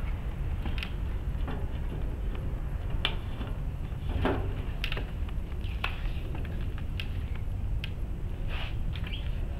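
Small scattered clicks and taps from hands handling the helicopter blade, about ten in all, over a steady low rumble.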